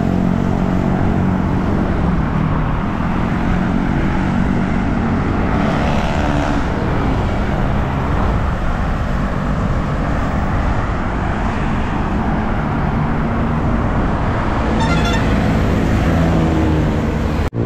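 Road traffic heard from a moving bicycle: motor vehicles running alongside on the highway over a steady rush of road noise, with engine drones strongest at the start and near the end.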